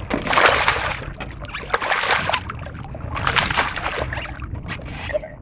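Hooked speckled trout thrashing and splashing at the water's surface beside the boat, in repeated bursts about a second and a half apart.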